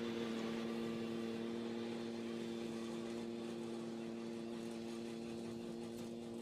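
A steady low hum of a few even tones, unchanging in pitch and slowly fading.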